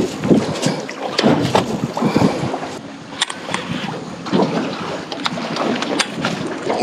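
Wind on the microphone and water against a small fishing boat, with scattered sharp clicks and knocks.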